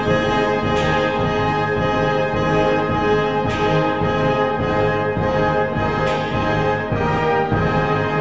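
Orchestral music with brass playing sustained chords, and a sharp hit about every two and a half seconds.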